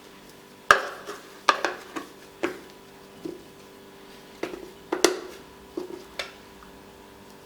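Kitchenware being handled while ingredients are measured out: about ten separate knocks and clinks, some with a short ring, as containers, cups and utensils are picked up and set down.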